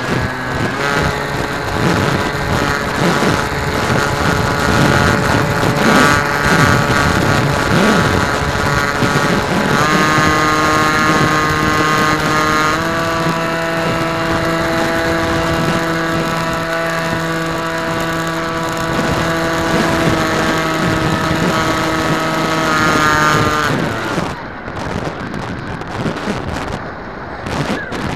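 Motor and propeller of a radio-controlled aircraft, heard from on board: a steady whine that steps up in pitch twice, then winds down near the end as the throttle is cut, leaving wind rushing over the microphone.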